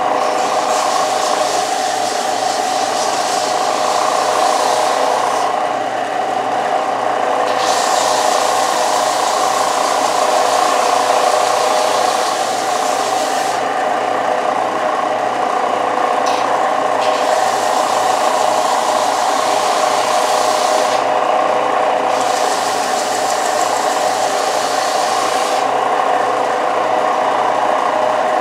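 Central Machinery 4-by-36-inch belt and disc sander running with a steady motor hum, its 120-grit belt grinding a wooden bench slat. The grinding hiss comes in four stretches of several seconds with short breaks where the wood is lifted off.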